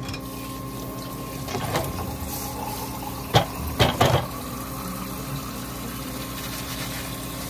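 Water running from a kitchen tap into a stainless steel sink during hand dish-washing, with a few sharp clinks of dishes about three to four seconds in.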